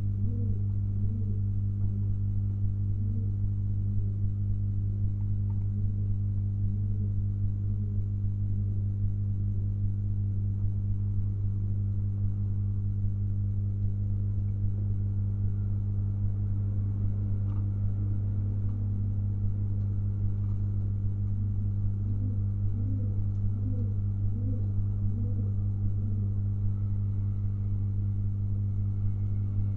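Domestic pigeons cooing in runs of short, low, rising-and-falling notes, near the start and again a little past the middle, over a loud, steady low electrical hum.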